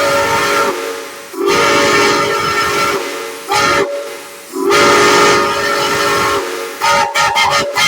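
A Chesapeake & Ohio six-chime railroad whistle, run on steam, sounding a chord of several tones in long blasts with a short one between them, then a quick string of short toots near the end.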